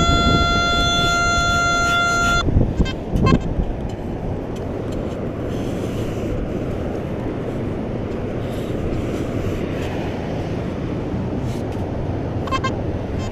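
A metal detector's speaker sounds a steady electronic tone for a little over two seconds, then a short beep. Afterwards there is a steady rush of surf and wind.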